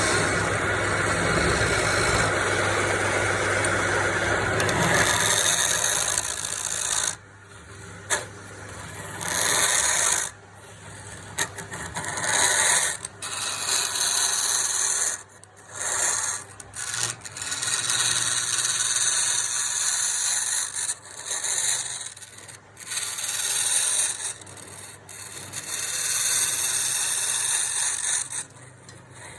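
Palm wood being worked by hand with an abrasive tool, filed or sanded in repeated uneven scraping strokes with short pauses between them. For the first six seconds or so there is instead a steady noise with a low hum.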